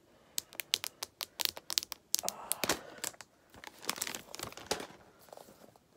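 Plastic shrink-wrap being peeled off an iPhone 12 Pro box: a quick run of sharp crinkles and crackles that dies away about five seconds in.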